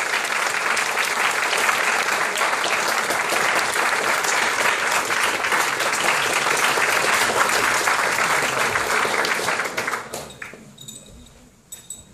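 An audience applauding: many people clapping steadily, dying away about ten seconds in.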